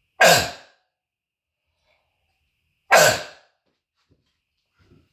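Two harsh, barking croup coughs from a man, about three seconds apart, each short and falling in pitch, echoing off the walls of the room. He puts the cough down to bronchitis in his throat.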